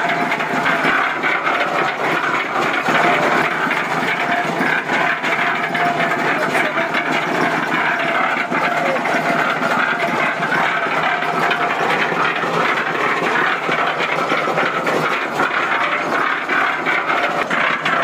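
Concrete mixer's engine running steadily, its drum turning with water and detergent inside.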